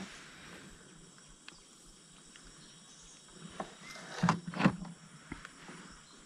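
Quiet open-air background beside a river, with a couple of short knocks a little over four seconds in.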